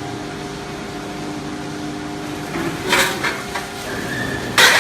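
Plate rolling machine running with a steady hum that stops about halfway. Then metal knocks about three seconds in and a louder clatter near the end.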